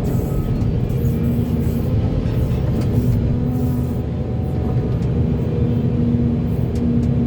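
Volvo EC480D excavator's diesel engine running under work, a steady low rumble with a droning hum that comes and goes.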